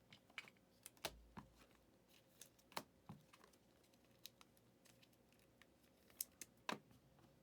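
Trading cards being handled during a pack break: scattered soft clicks and taps against a near-silent background, the loudest about a second in and near the end.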